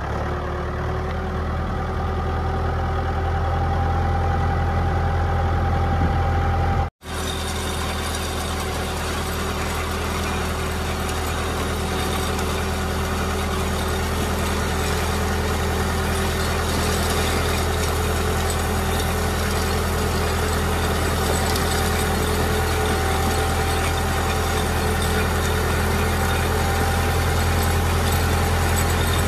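Garden tractor engine running steadily while it drives, with a deep drone and a few steady higher tones. After a brief cut about seven seconds in, a gritty hiss joins it as the rake teeth drag through gravel.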